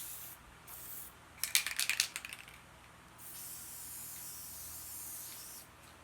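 Aerosol can of Gorilla Glue spray adhesive: two short bursts of spray, a brief clattering rattle about a second and a half in, then one long spray of about two and a half seconds.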